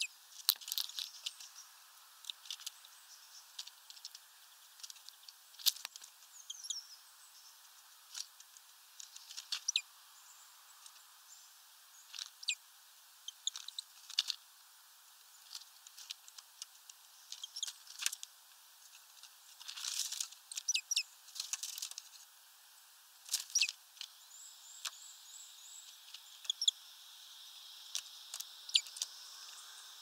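Great tits and a blue tit at a seed feeder: irregular sharp taps and clicks of beaks pecking at sunflower seeds and of feet landing on the tray and twig perches. A denser rustling flurry comes about twenty seconds in, and there are a few faint high chirps.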